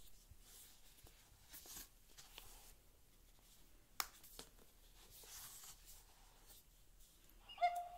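Faint handling noises of a hardback board book being turned over and set down on a rug: soft rustles and brushes, with one sharp tap about halfway. Near the end the book's sound module starts playing a recorded bird call.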